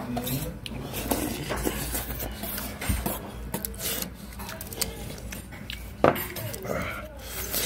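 Metal spoon and cutlery clinking and scraping against bowls and dishes during a meal, in scattered knocks, with the sharpest clink about six seconds in.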